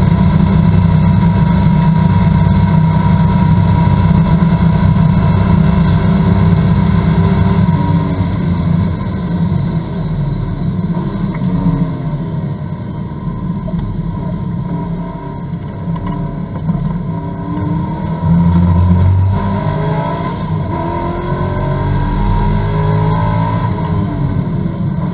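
Corvette GT2 race car's V8 heard from inside the cockpit, running steady and loud at full throttle at about 147 mph. About eight seconds in it lifts and the car slows, and then the engine note rises and falls as it is driven back up through the gears.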